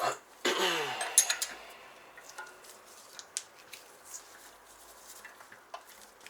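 Steel tool parts clinking and scraping as a bolt, 32 mm socket and nut are fitted together as a bearing press in a bicycle rear hub. About half a second in there is a loud metallic scrape that falls in pitch, a couple of sharp clinks just after, then light scattered ticks.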